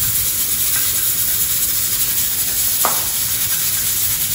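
Kefta sausages, meatballs and chopped onion sizzling steadily in oil in a frying pan, with a single light tap a little under three seconds in.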